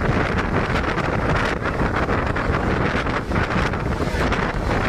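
Strong storm wind blowing hard and buffeting the microphone, with frequent short snaps through it.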